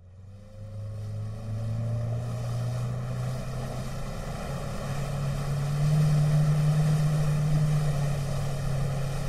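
Outboard motor on a flats skiff accelerating as the boat gets up on plane, its pitch climbing and then holding steady at running speed, with water hissing along the hull. It fades in at the start and steps up in pitch about halfway through.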